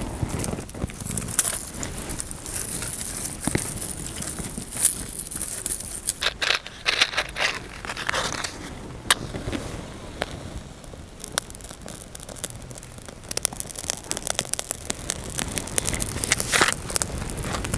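Dry grass tinder rustling and crackling as it is stuffed into a pile of dried dung fuel cakes and set alight, with many small sharp crackles toward the end as the grass catches.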